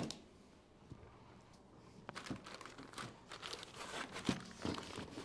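Packing material from a grill's shipping box being handled and pulled away: crinkling and tearing, with a sharp knock at the start and scattered crackles and rustles from about two seconds in.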